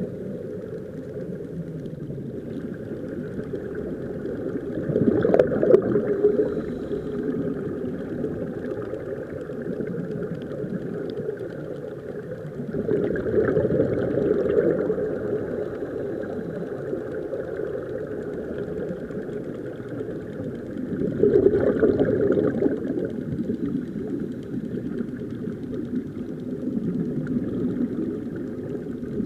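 Muffled underwater noise picked up by a submerged camera, a steady low rumble with bubbling, swelling louder three times at roughly eight-second intervals.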